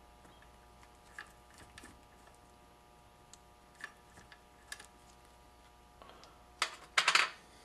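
Small metallic clicks and ticks of hand tools and a washer being worked off a transmission's shift shaft, then a few louder metal clanks near the end.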